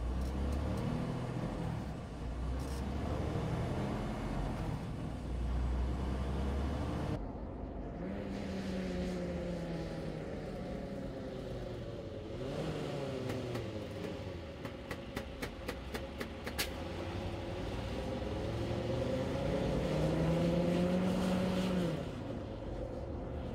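Freightliner Cascadia semi-truck driving at highway speed: deep engine and road rumble, with the engine note falling and later rising in places. There is a short run of quick, evenly spaced ticks about two-thirds of the way through.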